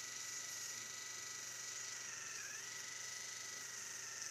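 Slim electric sonic toothbrush buzzing steadily with a thin high tone as it brushes a cat's front teeth; its pitch dips briefly about halfway through.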